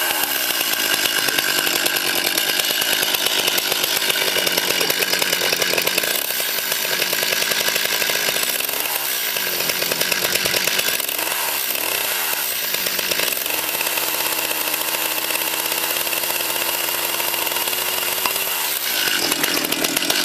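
Two-stroke chainsaw running, its engine pitch dipping and swinging back up several times: about nine seconds in, twice around twelve seconds, and again near the end.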